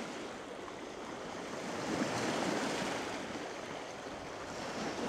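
Small lake waves lapping and washing over a rocky shore, swelling to their loudest about two seconds in.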